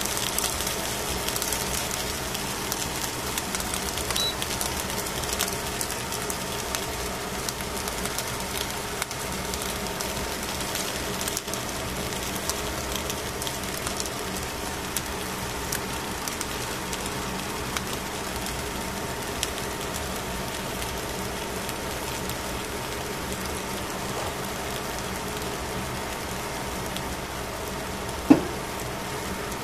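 Fish fillets cooking on foil over a wire grill rack: a steady rushing hiss with faint crackling and ticking. A single sharp knock about 28 seconds in.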